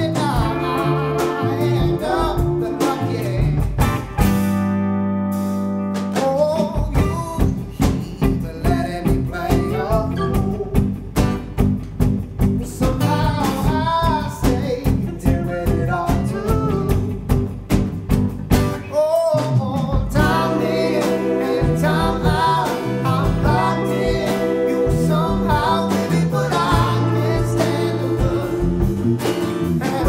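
Live band playing a song: a man singing over electric guitar, electric bass guitar and a drum kit. About four seconds in, the band briefly holds a chord without drums before the beat comes back.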